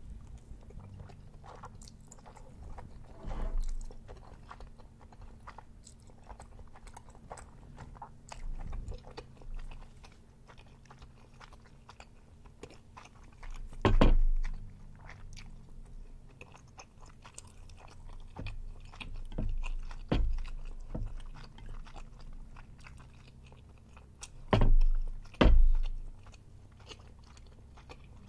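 Close-miked chewing and wet mouth sounds of eating chewy Korean rice cakes (tteokbokki) with melted cheese, with many small clicks. A few louder thumps come about a third of the way in, around two-thirds, and twice near the end.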